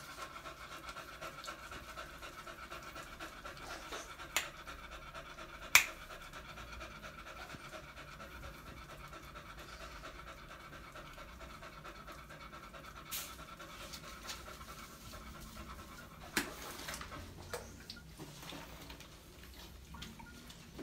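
Beagle panting rapidly and steadily, easing off near the end. A few sharp clicks sound over it, the loudest about six seconds in.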